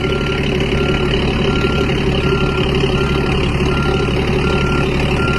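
Vehicle reversing alarm beeping steadily, about eight short even beeps, over the continuous rumble of a running engine, as a load is moved out of a shipping container.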